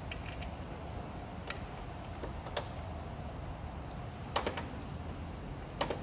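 Ratchet head of a torque wrench with a 5/16-inch socket clicking as a nut is backed off: a handful of sharp, irregular clicks, with a quick double click a little past four seconds in.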